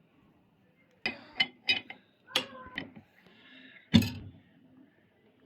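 Several sharp metallic clinks and knocks of tools and injector parts handled on a workbench, one ringing briefly; the loudest knock comes about four seconds in.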